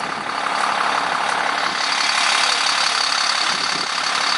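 Bucket truck engine idling steadily, a constant hiss with a faint high whine held throughout.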